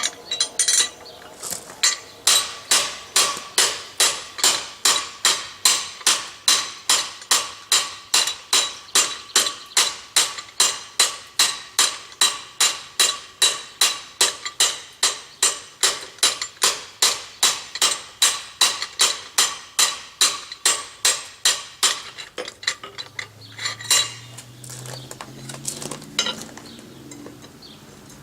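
Blacksmith's hammer striking steadily on hot steel through a fullering tool on the anvil, drawing the bar down. About two and a half ringing metal blows a second, which stop short a few seconds before the end, followed by a couple of separate blows.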